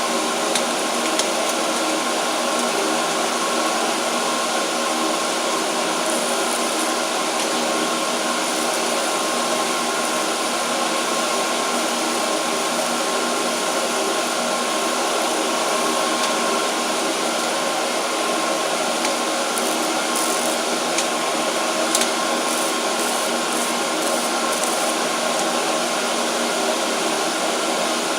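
A machine running steadily: a constant, unbroken drone with a fixed hum running through it.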